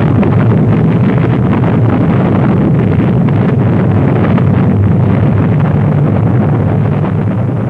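Loud, steady deep roar of a rocket exploding in a fireball on its launch pad, easing off slightly near the end.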